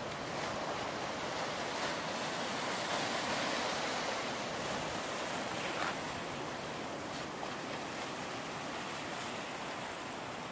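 Ocean surf: a steady rush of breaking waves that swells over the first several seconds and then eases off.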